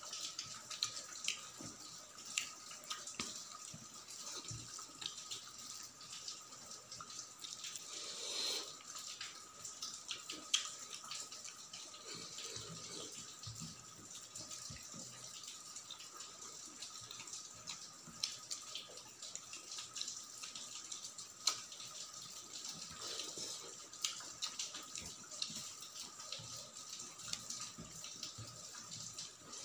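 Close-miked wet eating sounds: fingers squishing rice and potato gravy against a steel plate, with chewing and lip smacks coming as many small irregular clicks.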